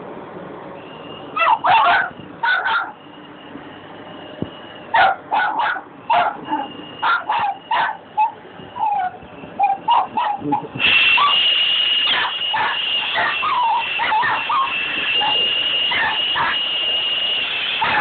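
A small dog barking and yipping in short bursts at a running Dyson cordless stick vacuum, whose motor gives a steady high whine. The whine grows much louder about eleven seconds in, and the yips carry on over it.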